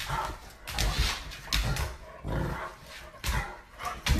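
A dog vocalizing in short bursts, about six in a row.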